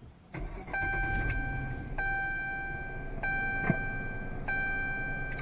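A single-pitched chime sounding the same note about every second and a quarter, each note ringing on until the next, over a low steady rumble that comes in just after the start. A short sharp click comes about two-thirds of the way through.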